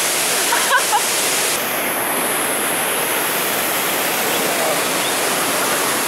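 Waterfall pouring into its plunge pool: a steady, unbroken rush of falling and churning water, with faint voices about a second in.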